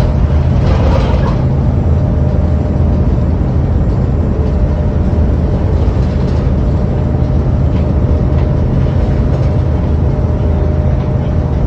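VDL single-decker bus heard from inside the passenger saloon, its diesel engine running at steady speed with a loud, even low drone and a thin steady whine above it.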